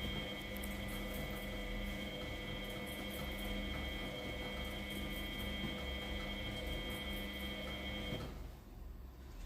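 Miele W833 washing machine's motor running with a steady whine, then cutting off about eight seconds in.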